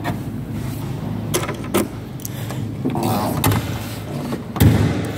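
Handling noise and a couple of light knocks as the boot's floor cover and contents are pushed back into place. About four and a half seconds in, the car's boot lid shuts with a loud, heavy thump.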